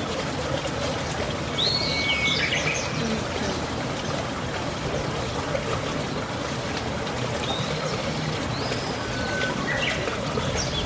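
Birds calling a few times, short chirps and a falling whistle, over the steady rush of flowing water.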